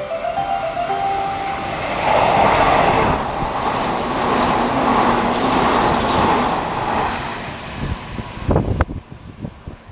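Sanyo Electric Railway train passing through the station without stopping: a loud rush of wheel and running noise that builds about two seconds in, holds, and fades away around eight seconds. A few notes of a short electronic tune die out at the start, and a single sharp knock comes near the end.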